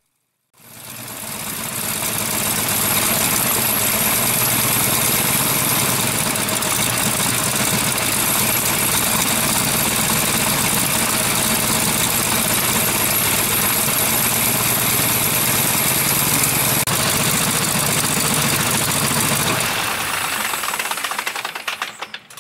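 Jacobs R-755 seven-cylinder air-cooled radial aircraft engine running steadily and turning its propeller. Near the end it is shut down, and the sound dies away unevenly as the propeller slows.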